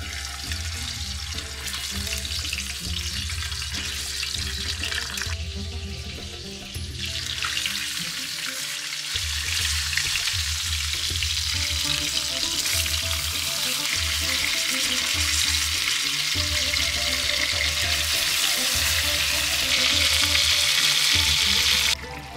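Raw chicken halves sizzling as they are laid into a hot black pan over a gas flame: a steady frying hiss that grows louder about seven seconds in as more pieces go in, then cuts off suddenly near the end.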